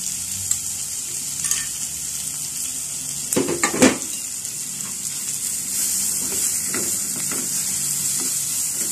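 Onions, green chillies and spices sizzling steadily in hot oil in a clay pot, with a spoon being stirred and scraped through them. A cluster of louder knocks of the spoon against the pot comes about three and a half seconds in.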